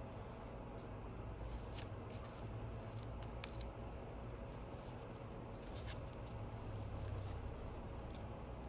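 Faint scattered clicks and light scraping of small hand tools and plastic adhesive film while a new screen gasket is fitted to an iPhone 11 frame, over a low steady hum.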